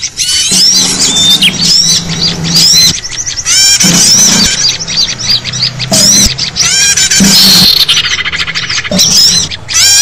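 Many small songbirds chirping and twittering at once in a dense, noisy chorus of rapid high notes that sweep up and down and overlap. It is a bird-lure recording of agitated small birds, used to draw wild small birds in.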